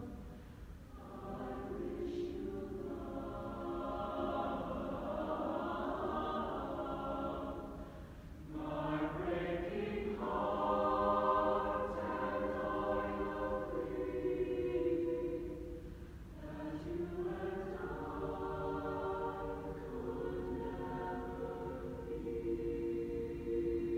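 Mixed high school choir singing a slow song in long held phrases, loudest around the middle, with short breaks between phrases about a second in, near eight seconds and near sixteen seconds.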